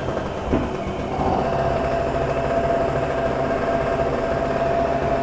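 Small two-stroke petrol engine of a TG950 portable generator running steadily just after being pull-started, on a freshly installed carburetor. It picks up slightly about a second in, then holds an even running note.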